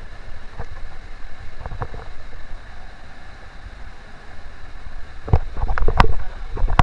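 Wind rumbling on the microphone, with scattered knocks and clatter that become louder and more frequent near the end.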